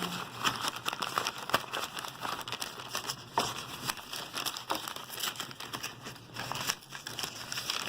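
Packaging crinkling and rustling in irregular bursts as a knife is unwrapped by hand.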